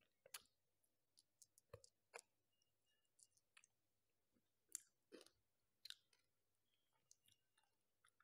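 Faint crackling and clicking of a chocolate-topped wafer ice cream cone being chewed and broken apart by hand. It comes as a dozen or so short, sharp snaps at irregular intervals, the loudest near the middle.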